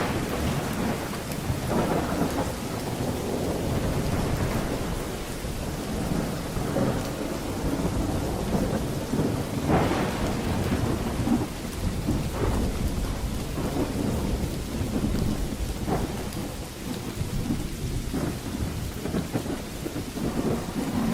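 Thunderstorm: steady rain falling, with continuous rolling thunder rumbling underneath. Louder thunder surges come about two seconds in and again about ten seconds in.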